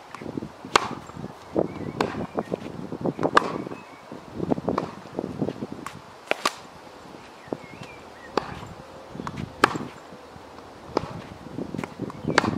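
Tennis balls struck with a racket and bouncing on a hard court during a groundstroke rally: a series of sharp pops, a second or two apart, with the player's quick footsteps scuffing between shots.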